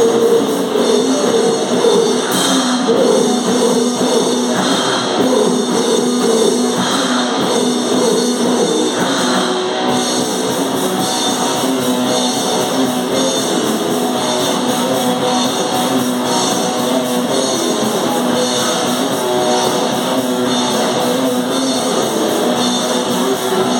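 Live hardcore noise metal band playing loud, with distorted electric guitar and drum kit in a dense, continuous wall of sound.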